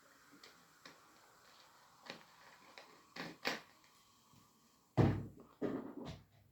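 A few light clicks, then a loud thump about five seconds in, followed by two more knocks.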